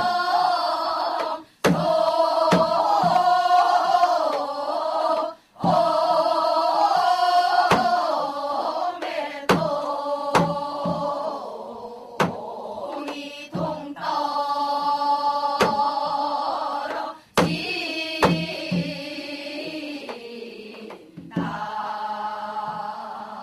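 A group of singers singing a Gyeonggi folk song (Gyeonggi minyo) in unison, phrase by phrase with short breaks between, over steady strokes of a janggu hourglass drum.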